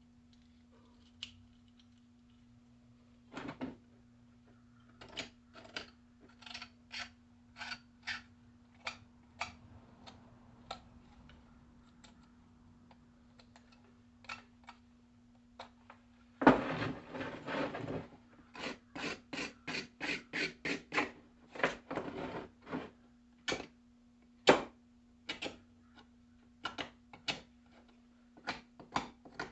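Tools and parts being handled at a workbench: a long run of sharp taps, clicks and knocks, some in quick strings, with a louder stretch of rapid rattling clicks a little past the middle, over a faint steady hum.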